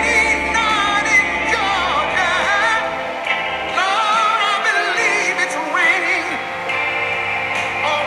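Slow ballad playing, with long wavering sung notes over a band accompaniment.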